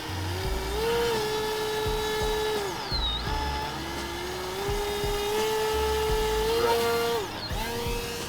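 RC plane's motor and propeller whining, the pitch rising and falling twice in long swells as the throttle is worked, then briefly again near the end.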